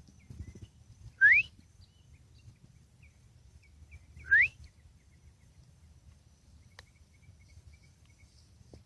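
A bird calling twice, about three seconds apart, each call one short note rising quickly in pitch, over a faint low outdoor rumble.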